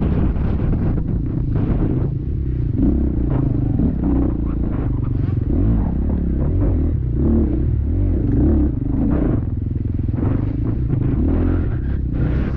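Four-stroke dirt bike engine running hard, its revs rising and falling again and again, with clattering over rough ground.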